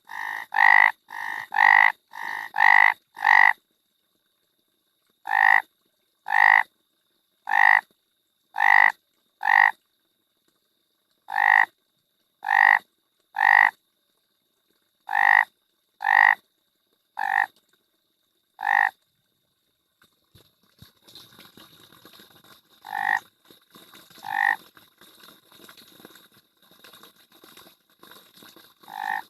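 A frog croaking in short repeated calls. They come about two a second at first, then after a short pause roughly one a second. Past the middle they thin out to a few scattered croaks over a faint background hiss.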